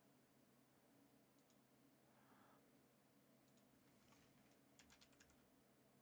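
Faint computer keyboard typing against near silence: a couple of single key clicks, then a quick run of about five clicks about five seconds in.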